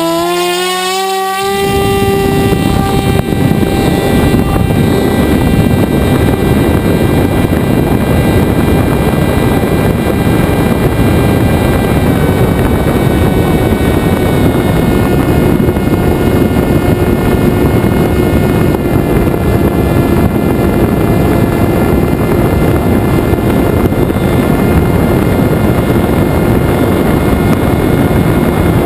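Electric motor and propeller of a Venturi FPV flying wing, rising in pitch as it throttles up and levelling off about a second in. It then runs as a steady drone under loud wind rush as the plane flies, heard from a camera on board.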